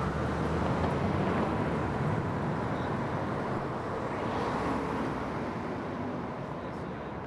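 A car driving off down a city street: engine and road noise that holds steady, then slowly fades over the last couple of seconds.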